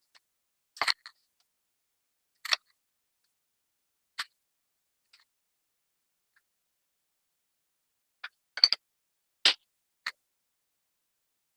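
Kitchen utensils and bakeware clinking and knocking: a handful of short, separate knocks spaced a second or more apart, with a quicker cluster of four near the end.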